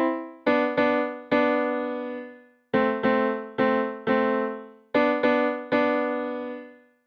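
Short piano-toned keyboard music phrase: about ten struck chords in three groups, each ringing and fading, the last one dying away near the end.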